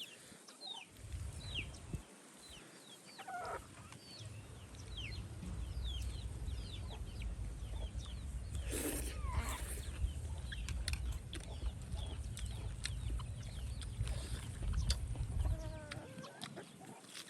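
Chickens clucking, with many short, falling high peeps like chicks calling, over a steady low rumble.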